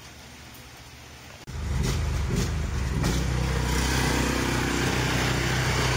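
Ford Super Duty pickup truck engine running. It is low and steady at first, then about a second and a half in it suddenly becomes much louder and holds steady.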